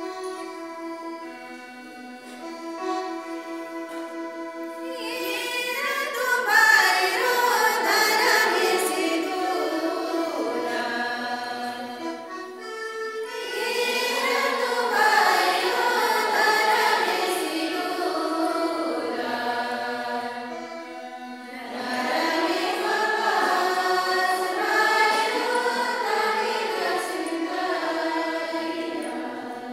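A group of voices singing a Kurukh Christian hymn over a sustained keyboard accompaniment. The first few seconds are instrumental only; the voices come in about five seconds in and drop out briefly twice, around the middle and again about two-thirds through.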